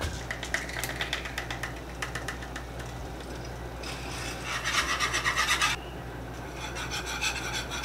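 Wire whisk scraping around a saucepan in rapid strokes, stirring a béchamel sauce as it thickens. The scraping is louder for a couple of seconds about four seconds in, then softer.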